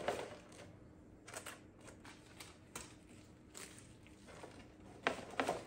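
Artificial flower stems rustling and clicking faintly as they are handled and pushed into a gift box used as a vase, with a louder cluster of clicks and rustles near the end.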